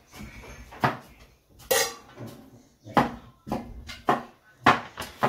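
Kitchen clatter: about half a dozen sharp, irregular knocks of a knife on a wooden chopping board and of dishes and utensils being handled.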